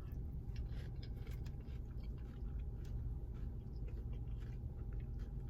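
Quiet chewing of a shrimp bowl, with soft, irregular mouth clicks over a steady low hum.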